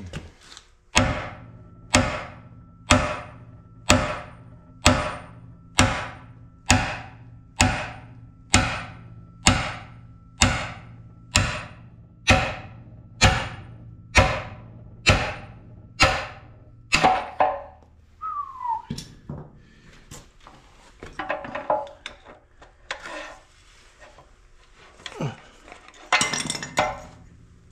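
Hammer blows on a driver, knocking a tight, extra-thick bearing out of a CAT D4D engine block: about seventeen even, ringing metal strikes, a little more than one a second, then a few scattered knocks and metal clatter near the end as the bearing starts to give.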